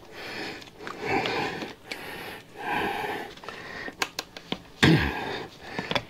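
A person breathing hard in two long, breathy exhalations while straining to force a stiff solid airless bike tire onto its rim, with a few sharp clicks from the tire and tool.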